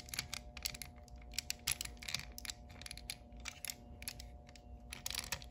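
Hard plastic parts of a Transformers Prime Beast Hunters Ultra Magnus action figure clicking and snapping as they are untabbed and folded by hand: irregular light clicks, thinning out for a second or so in the middle.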